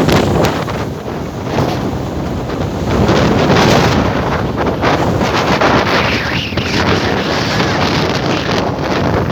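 Strong wind buffeting the microphone in loud, uneven gusts, over the wash of big waves on a lake.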